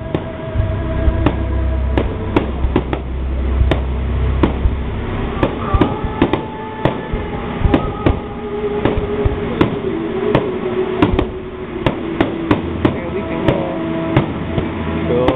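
Aerial fireworks shells bursting in quick, irregular bangs, several a second at times, with a low rumble under the bangs for the first few seconds.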